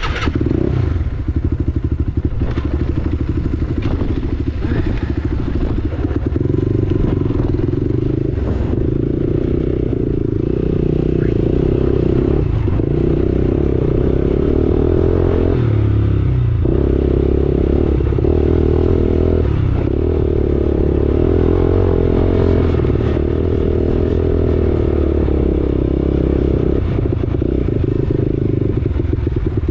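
BSE T8 dirt bike engine running hard under throttle while riding, with brief drops in the engine note a few times, around 12, 16, 19 and 27 seconds in, as the throttle is eased or a gear is changed.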